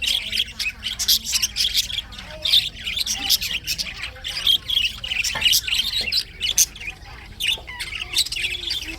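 Budgerigar chirping and squawking continuously in quick, scratchy bursts.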